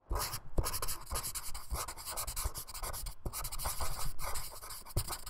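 Felt-tip marker drawing and lettering on a white surface: a quick, uneven run of short scratchy pen strokes.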